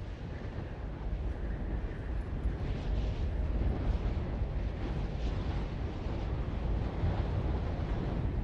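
Rushing wind high in the air with a deep rumble, swelling over the first few seconds and then holding steady.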